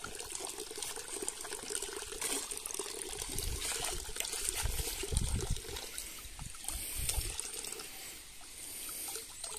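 A stream of water trickling and splashing from a pipe outlet into a fish pond. Over it comes heavier sloshing as a pond skimmer net is drawn through the water and lifted out, a few seconds in and again near the end.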